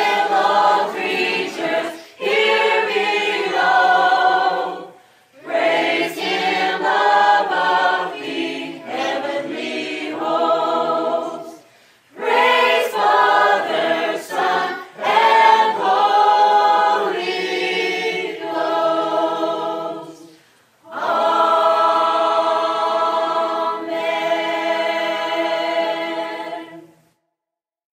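A group of voices singing a cappella, in phrases broken by short pauses, closing on a long held chord that cuts off about a second before the end.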